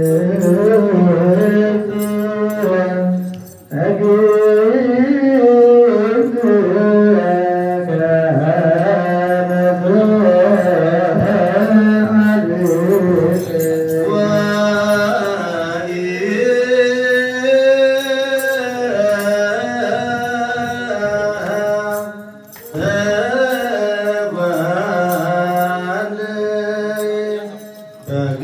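Men's voices chanting an Ethiopian Orthodox Ge'ez hymn to Mary together, with long held notes that waver and slide. The chant breaks off briefly about three and a half seconds in and again near twenty-two seconds, then resumes.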